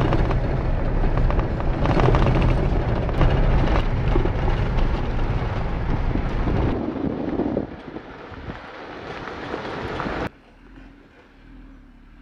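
Jeep driving up a gravel road, heard inside the cab: a steady engine rumble with tyre and gravel noise and small knocks. It eases off about seven seconds in, then cuts off abruptly just after ten seconds to a much quieter background.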